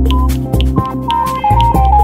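Countdown timer soundtrack: electronic music with a drum beat, a short high beep of the final-seconds countdown just after the start, and a stepping run of notes in the second half.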